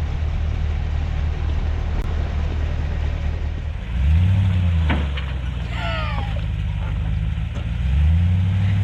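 Motor engine running steadily, then revving up about four seconds in and again near the end, over a steady wind noise. A sharp knock and a short warbling chirp come in the middle.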